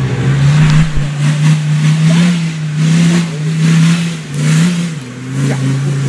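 Land Rover Defender's TD5 five-cylinder turbo-diesel engine running hard under load off-road. It holds a steady pitch under repeated surges of rushing noise a bit more than once a second, and its pitch drops about five seconds in.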